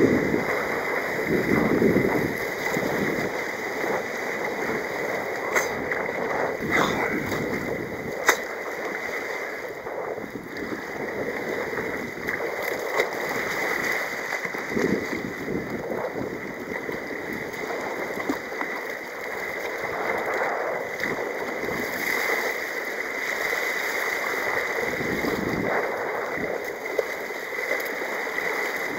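Rough, breaking sea water rushing and splashing around a sea kayak's bow and paddle in a tidal race. A few sharp knocks come about a quarter of the way through.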